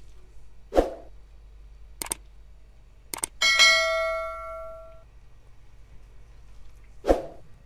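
Kitchen handling sounds: a dull thump, two light clicks, then a metal utensil or pan struck so that it rings like a bell and fades over about a second and a half, and another thump near the end.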